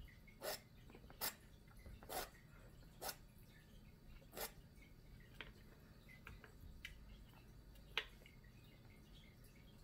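Palette knife laying acrylic paint onto a canvas: a series of faint short scrapes and dabs, about one a second at first, then fewer and softer, with one sharper stroke near the end.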